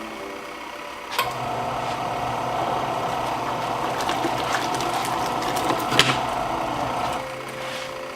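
Small portable twin tub washing machine running its wash cycle: a steady motor hum that picks up with a click about a second in, runs louder, then drops back near the end.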